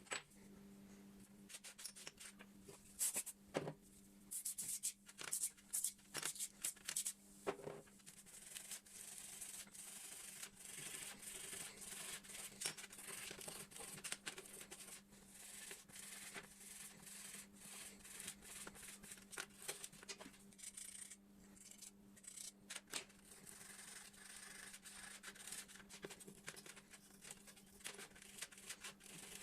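Rubbing and scrubbing by hand on a part, in quick short strokes. Sharp clicks and knocks fall over roughly the first eight seconds, and a steady low hum runs underneath.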